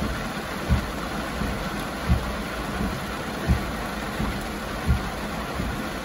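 Heavy rain falling on a car's roof and windshield, heard from inside the cabin, with a low thump from the windshield wipers about every second and a half, four times.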